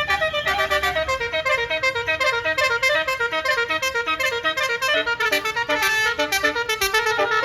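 Bus-mounted Basuri multi-tone air horn playing a fast melody, a quick run of short notes stepping up and down in pitch, several notes a second.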